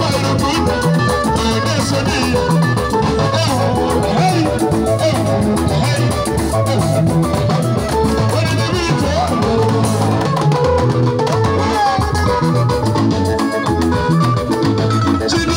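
Live band music with guitar and drums playing a steady beat.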